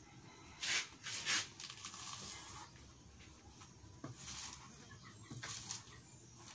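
Large knife slicing through a banana blossom held in the hand: about four short cutting sounds, the two loudest close together about a second in.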